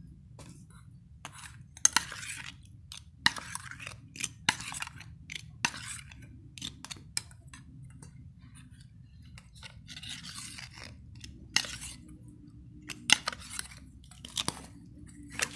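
Metal spoon clinking and scraping against an enamel bowl while it scoops beaten egg over grilled sticky rice, in a dozen or so irregular clinks and short scrapes.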